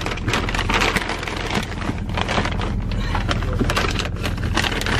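Vehicle engine running with a steady low hum, overlaid with a dense run of crackling and rustling noises.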